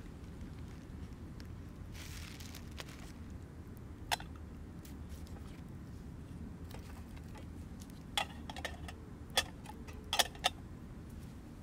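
A stainless steel camp pot's lid being lifted and handled, giving a few sharp metallic clicks and clinks, several close together near the end. Under it runs a steady low rumble.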